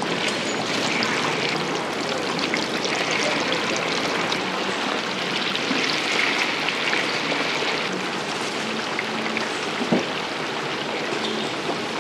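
Hot oil sizzling and crackling steadily as food deep-fries in a fryer, with a single sharp knock about ten seconds in.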